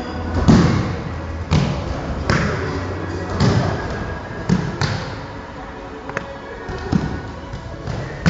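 Children's bodies hitting gym mats during aikido rolls and breakfalls: a run of irregular thumps and slaps, about eight in all.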